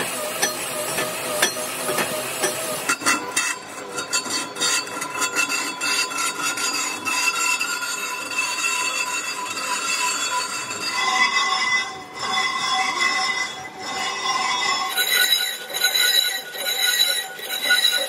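Lathe cutting tool turning a cast iron truck brake drum, the metal-on-metal cut giving a steady high ringing squeal. The pitch of the squeal changes abruptly several times.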